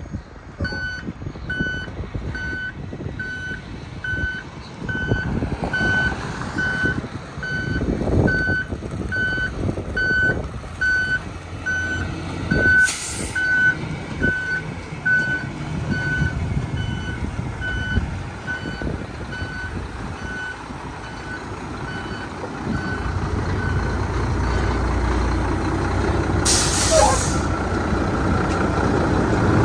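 2006 GMC 7500 stake truck's 7.8-liter diesel running while its reversing alarm beeps steadily at one pitch, the beeping stopping after about twenty seconds. Two short hisses of air, one about thirteen seconds in and one near the end, fit the truck's air brakes. In the last few seconds the diesel idles louder and closer.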